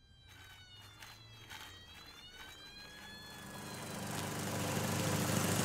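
A toy fire truck's siren wails, slowly rising and falling in pitch. About halfway through, a petrol lawnmower engine starts up and grows steadily louder until it drowns out the siren.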